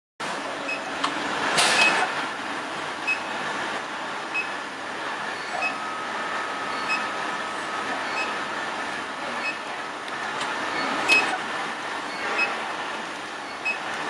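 Steady machine hiss of an induction brazing setup at work, with a faint tick about every second and a bit. Two short, louder bursts of noise come about two seconds in and again about eleven seconds in.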